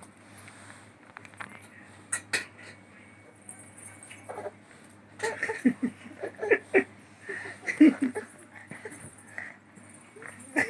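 A baby vocalising in short bursts of babble and giggling through the second half, after two sharp clicks about two seconds in.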